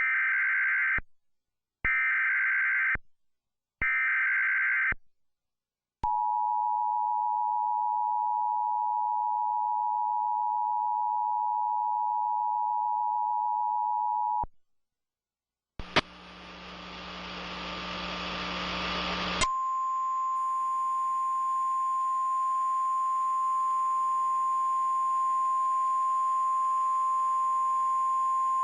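Emergency Alert System tornado warning on TV. It opens with three short bursts of warbling data-header tones, then the two-tone attention signal held for about eight seconds. After a brief pause comes a few seconds of hiss, then a single steady alert tone over continuing hiss.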